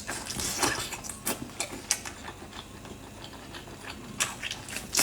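Irregular clicks and short crackling rustles of food and eating utensils being handled, with a brief louder hissing crackle near the end.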